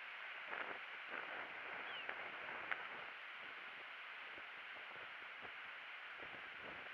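Steady outdoor background hiss with a few faint clicks and one sharp tick a little before the middle.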